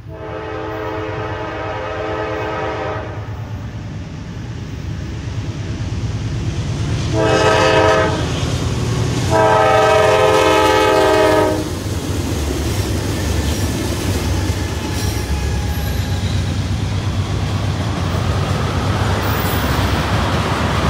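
Norfolk Southern GE D9-44CW diesel locomotive sounding its air horn, a chord of several tones, three times: a long blast, then a short one, then a long one. This is heard over the low drone of the diesel engines as the locomotives pass. In the second half the horn gives way to the steady rolling noise of tank car wheels on the rails.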